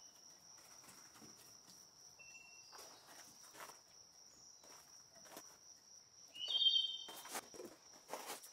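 Faint, irregular taps and brushing from a paint brush dabbing thick paint stripper onto painted wooden furniture legs. A bird chirps briefly about two seconds in and again, louder, about six and a half seconds in, over a steady faint high whine.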